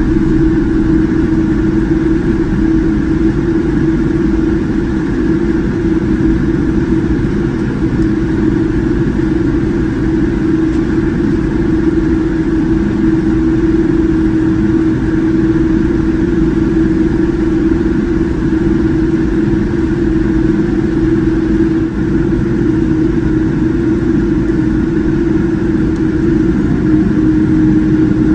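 Boeing 787-9 airliner cabin noise: a loud, steady rush of jet engine and air noise with a constant hum, holding the same level throughout.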